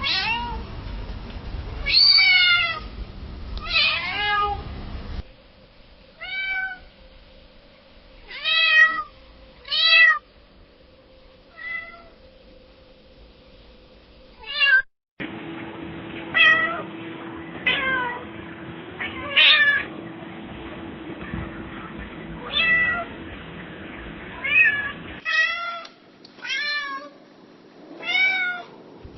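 Domestic cats meowing over and over, each meow a short pitched call that rises and falls. The sound is a string of separate recordings: the background noise changes suddenly three times, and one recording has a faint steady hum under the meows.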